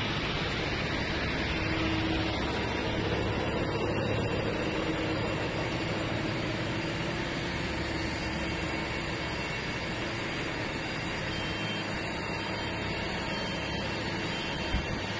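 A steady engine running with a constant hiss over a low hum, and one short knock near the end.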